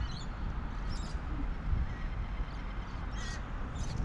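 Wind rumbling on the microphone, with a few faint bird calls.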